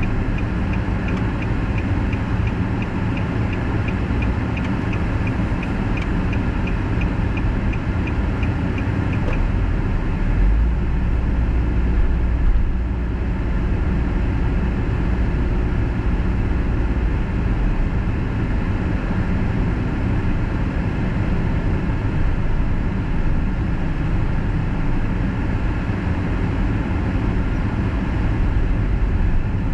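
Car cruising on an expressway, heard from inside the cabin: steady tyre, road and engine noise. A turn-signal indicator ticks about twice a second for the first nine seconds or so, and a deeper rumble comes in from about ten to seventeen seconds.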